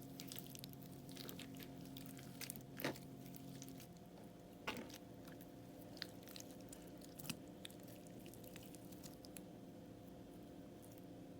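Crunchy slime crackling and crunching as it is worked, a dense run of small sharp crackles with a few louder snaps scattered through.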